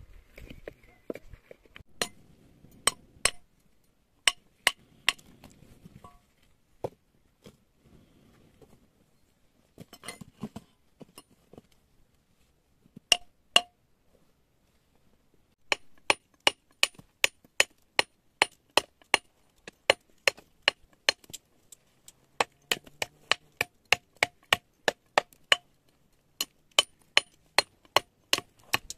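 Hammer blows with a ringing, metallic clink, a few scattered strikes at first, then steady hammering at about two blows a second through the second half.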